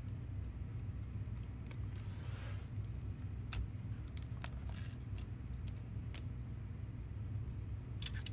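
A laptop LCD panel being handled: light clicks and taps as it is tipped out of its display frame and laid down on the keyboard, with a brief rustle about two seconds in, over a steady low hum.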